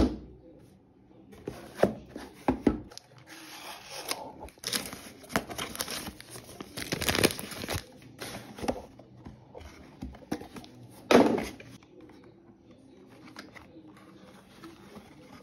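Cardboard shipping box being torn open and handled, with tearing, rustling and crinkling of cardboard and paper and scattered clicks. A single loud thump about eleven seconds in.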